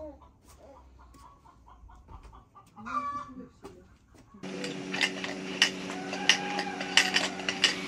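Hens clucking in short, faint calls, a little louder about three seconds in. Just past halfway the sound changes abruptly to a steady mechanical hum with sharp clinks and knocks.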